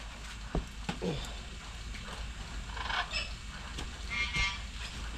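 A shovel working a dry mix of tea, sawdust and manure, with a few short knocks in the first second and soft scraping. A pet bird gives short high calls around three seconds in and again near four seconds.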